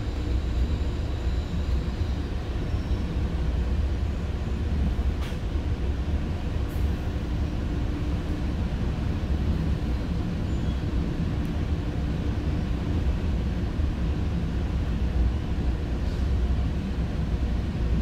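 Commuter train running along the track, heard from inside the passenger car: a steady low rumble.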